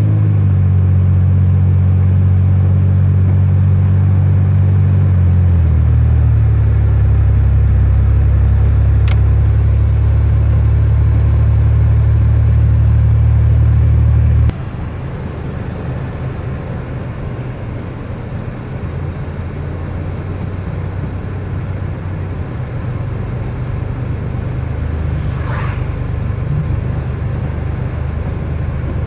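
Car interior noise while driving: a steady low drone that shifts lower about five seconds in and drops away suddenly about halfway through, leaving a quieter road hum.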